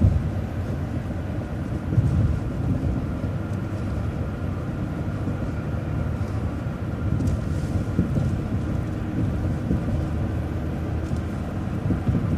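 Bus driving along the road: a steady low rumble of engine and road noise, with a thump about two seconds in.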